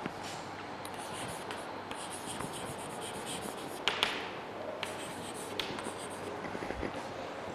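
Chalk writing on a chalkboard: faint scratching strokes with small taps, and two sharper chalk taps about four seconds in.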